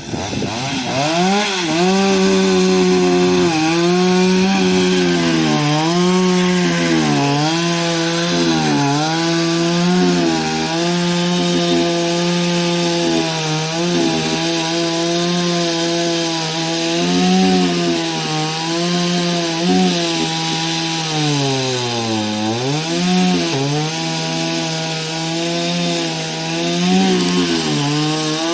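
Chainsaw cutting through the wood of a fallen tree, running continuously at high speed with its note repeatedly dipping and recovering as the chain bites. About three quarters of the way through it slows down more deeply, then picks up again.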